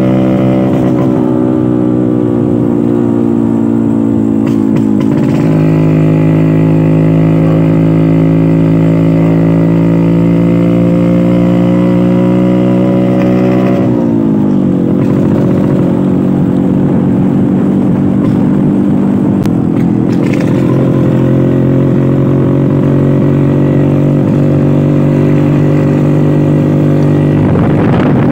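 Old Vespa scooter's two-stroke engine running while riding, its pitch easing slowly. The pitch shifts about five seconds in and drops sharply about halfway through, then holds steady.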